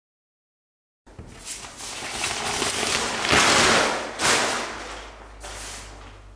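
Sound effect of distant gunfire and explosions: a few sharp cracks in a wash of noise that starts suddenly about a second in, swells loudest around three to four seconds, then fades away.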